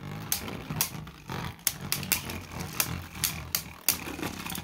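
Two Beyblade Burst tops spinning against each other in a plastic stadium: repeated sharp clicks, a few a second and irregular, as they strike each other and the walls, over a low whirring rumble.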